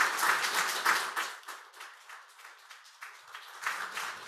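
Audience applauding. The clapping thins out and dies away about a second and a half in, and a few scattered claps follow near the end.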